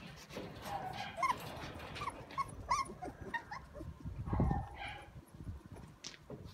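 Shiba Inu whimpering and yipping in a run of short cries, with scattered knocks and a louder low thump about four seconds in.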